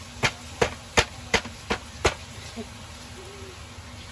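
Six sharp knocks in quick succession, about three a second, then they stop: a plastic basket being rapped against the rim of a cooking pan to shake the last leafy greens out of it.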